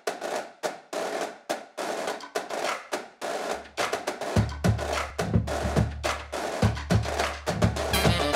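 Background music for a motion-graphics intro: a beat of repeated drum and percussion hits. A deep bass line comes in about halfway through, and melodic notes join near the end.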